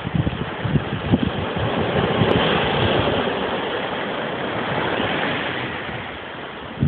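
Ocean surf breaking and washing over rocks onto the beach: a steady rush that swells about two seconds in and fades toward the end. Gusts of wind rumble on the microphone near the start.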